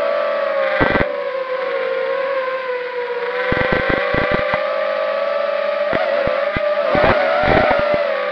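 A ZMR250 racing quadcopter's brushless motors and props whine steadily, heard through its onboard camera. The pitch wavers slightly as the throttle changes. Short bursts of sharp crackles come about a second in and again in clusters through the middle and latter part.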